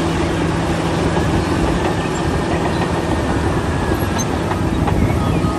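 Caterpillar D9T crawler bulldozer's diesel engine running steadily under load as it pushes dirt, with the rattle of its steel tracks.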